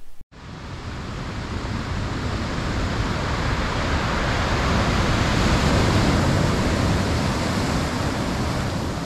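Rushing surf-like noise of ocean waves, starting suddenly just after a moment of silence, swelling to a peak around the middle and easing off toward the end.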